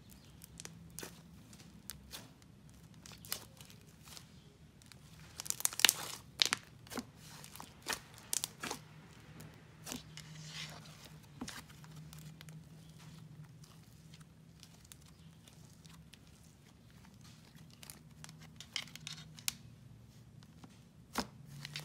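Blue icing slime made with fake snow being pressed, stretched and pulled apart by fingers: soft, sizzly crackles and short tearing sounds, coming in clusters a few seconds in and again near the end.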